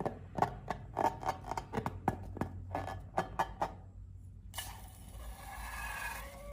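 Slime being squeezed and worked by hand, giving a quick run of sharp, irregular clicks and crackles. After about four and a half seconds this gives way to a hiss with wavering, squeaky tones.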